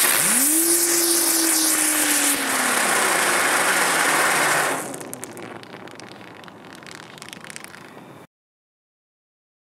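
Dum-Dums color spinner, a ground-spinner firework, burning: a loud rushing hiss of sparks with a whining tone that rises quickly at first and then slowly sinks. About five seconds in it dies down to a faint fizz with small crackles, then cuts off suddenly near the end.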